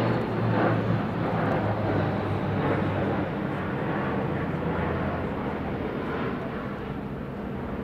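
Large military transport aircraft passing overhead: a steady engine drone with a low hum under it, slowly fading toward the end.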